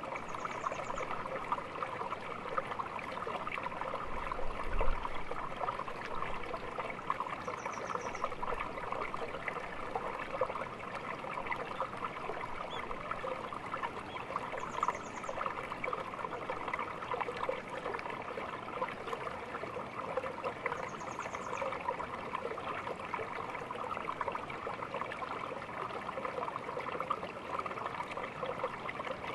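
Small stream babbling and trickling steadily. A short high trill repeats about every seven seconds, and there is a low thump about five seconds in.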